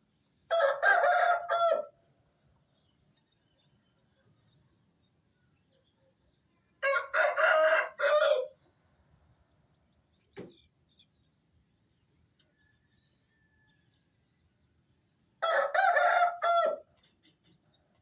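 Aseel rooster crowing, three long cock-a-doodle-doo calls about seven seconds apart. Crickets trill steadily underneath, with one brief short sound about ten seconds in.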